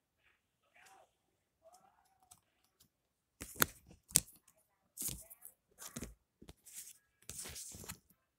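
Trading cards and their packaging being handled: a series of short papery scraping noises, with two sharp clicks about three and a half and four seconds in.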